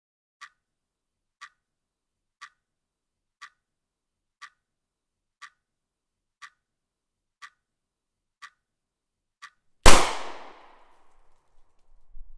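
Clock ticking once a second, ten ticks, then a single loud gunshot about ten seconds in that rings out and fades over a second or so.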